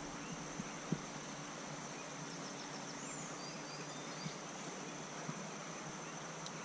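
Riverside ambience: a steady high-pitched insect drone over an even rush of flowing river water, with a few faint bird chirps about three seconds in.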